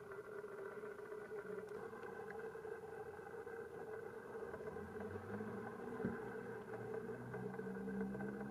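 Steady engine hum. A deeper rumble comes in about five seconds in, with a single knock a second later.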